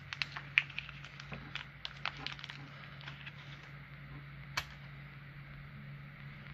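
Light clicks and crinkling from fingers handling small engine parts and a thin plastic sheet. The clicks are busiest in the first two and a half seconds, with one sharper click about four and a half seconds in, over a steady low hum.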